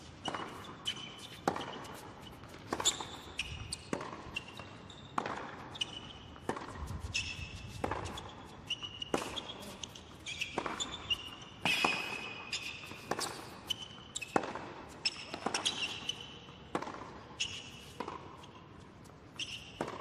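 A long tennis rally on a hard court: the ball is struck by rackets and bounces, making sharp pops about once a second, and sneakers squeak on the court between shots.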